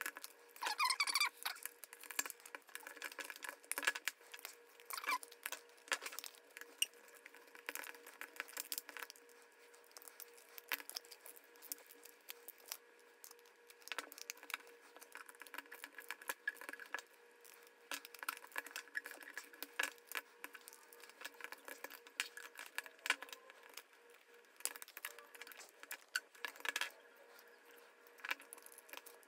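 Ratcheting hand screwdriver clicking in short irregular runs as it drives a bolt into a plastic Cuban yo-yo handline spool, with small knocks from the spool being handled.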